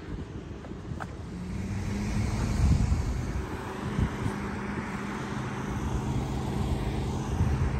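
Road traffic on wet pavement: a vehicle passing with tyre hiss that swells and fades over several seconds. A steady low hum sits under it, and there are a few low knocks of wind on the microphone.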